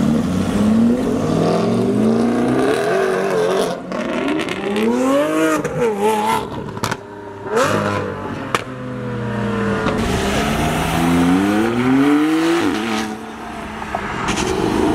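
Several sports cars accelerating hard away one after another, engines revving up through the gears, their pitch climbing and dropping back at each shift. There are a few sharp cracks partway through.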